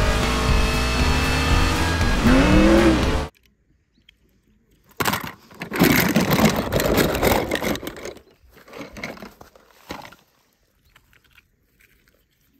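Film soundtrack audio: music with car sounds that breaks off about three seconds in, then, after a short pause, a few seconds of noisy rushing and clatter.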